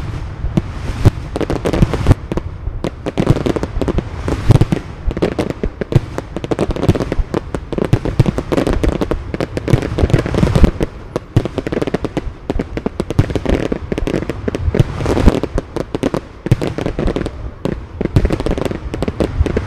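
Aerial fireworks display: a dense, unbroken barrage of launch reports and shell bursts, several bangs a second, with crackling between them.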